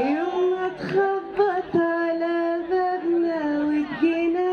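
A woman singing an Egyptian Arabic song, holding long drawn-out notes with small dips and turns in pitch between them.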